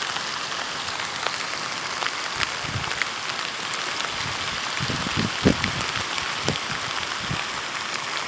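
Steady hiss of rain falling on floodwater, with a few low bumps on the microphone in the middle, the loudest about five and a half seconds in.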